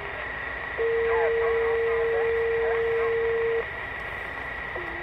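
A steady low tone comes over the CB radio channel for about three seconds, starting about a second in, with faint garbled voice traces under it and a thin steady high whine throughout. It is typical of someone keying up over the channel and blocking it.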